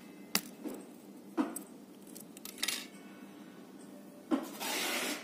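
Four sharp, separate clicks and taps of hard clock parts being handled as the minute hand comes off the centre spindle of a large gear wall clock, then a brief scraping rustle near the end.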